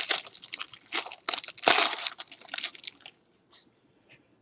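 Wrapper of a football trading-card pack crinkling and tearing as it is opened by hand. The crackling runs for about three seconds, loudest a little before the halfway point, then stops.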